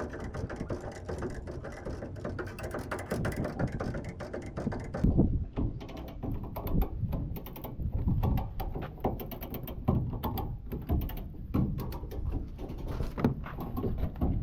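Irregular mechanical clicking and knocking, typical of hand tools at work on a truck, with an abrupt change in the sound about five seconds in.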